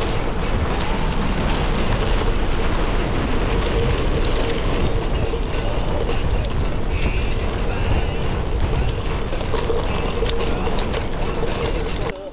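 Gravel bike rolling fast over a dirt and gravel trail: Panaracer GravelKing SS 38 mm tyres rumbling, with wind noise on the action camera's microphone and a faint steady hum. The sound cuts off abruptly near the end.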